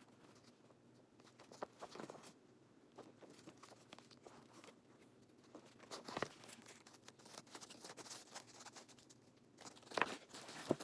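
Protective plastic wrapping on a handbag's handles crinkling and rustling as hands handle it, in faint scattered crackles with louder rustles about six and ten seconds in.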